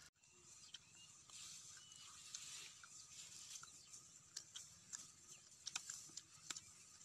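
Faint crisp clicks and crunches of green, unripe mango being bitten and chewed, scattered irregularly over a steady high hiss.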